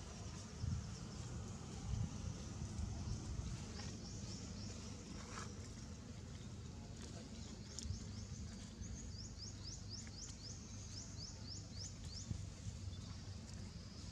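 Outdoor ambience: a steady low rumble under a faint high insect-like hum, with a quick run of about a dozen short, rising high chirps, some three a second, about two-thirds of the way through.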